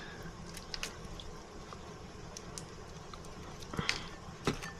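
Faint wet clicks and taps of hands pulling the tails off peeled shrimp, with a few sharper clicks near the end.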